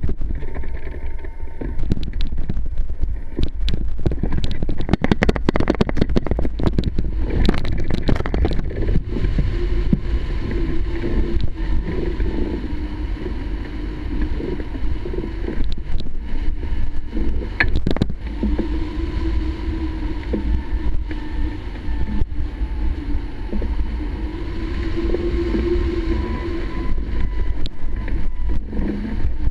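Wind rushing over a hang glider and buffeting the microphone, a steady low rumble with a wavering hum. There is a flurry of sharp knocks and rattles between about two and nine seconds in, during the launch.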